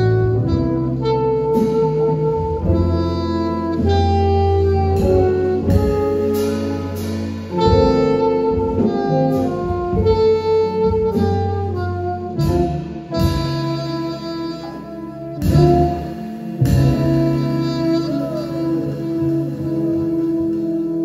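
Live jazz band playing: a saxophone melody over electric bass, drums and cymbals, with guitar and keyboard. For the last few seconds the band settles onto a long held chord.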